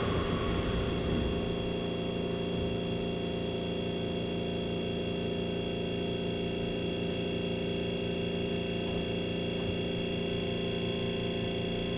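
Keihan 3000 series electric train standing in a station, heard inside the car: a steady hum and whine of its onboard electrical equipment, made of several constant tones, after the last of the running noise dies away at the start.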